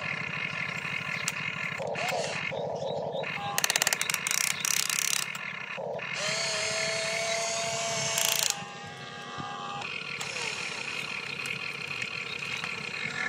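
Toy RC excavator's small electric motors and plastic gears whirring as the boom, bucket and cab move, with a run of rapid gear clicks a few seconds in.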